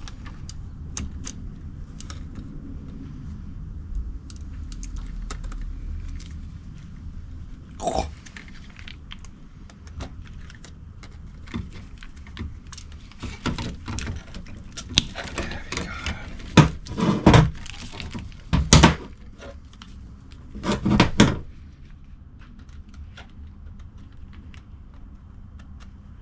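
Hand tools being handled in a workshop: scattered clicks, clinks and knocks, with a cluster of louder knocks in the second half, as big cutters are fetched and put to a clamp on a fuel-pump hose.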